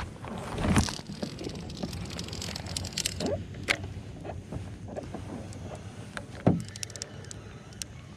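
Handling noise from a kayak angler's spinning rod and reel: irregular clicks and short swishes, with two louder swishing knocks, one about a second in and one near 6.5 seconds. Clothing rubs over the body-mounted microphone.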